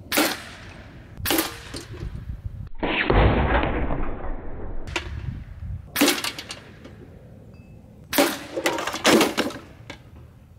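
Repeated shots from a GAMO TC35 .357 big-bore PCP air rifle, heard at the target end: about five sharp cracks, each with a clang as the heavy pellet hits the steel target box. Midway there are about two seconds of loud rushing noise.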